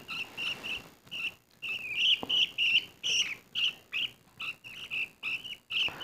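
Budgerigar chicks chirping: short high calls repeated about three or four times a second.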